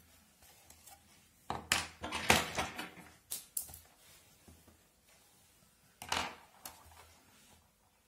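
Geometry instruments handled on a notebook page: a plastic ruler laid down and a pencil compass picked up and set against it, making a cluster of clicks and knocks about two seconds in and a couple more about six seconds in.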